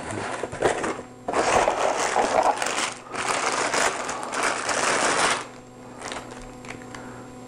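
Crinkling plastic wrap and rustling cardboard packaging as a condenser microphone is pulled from its box and bag, in uneven handfuls with short pauses about one and three seconds in. The handling stops about five and a half seconds in, leaving a faint steady hum.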